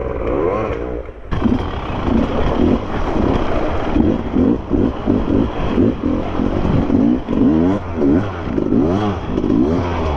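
Enduro dirt bike engine revving up and down over and over as the throttle is worked on rough trail, with clattering from the bike from about a second in.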